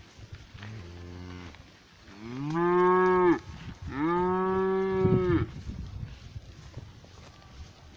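Cattle mooing: a quieter, low moo about a second in, then two loud, long moos back to back in the middle. Each of the loud moos rises in pitch at its start and falls away at its end.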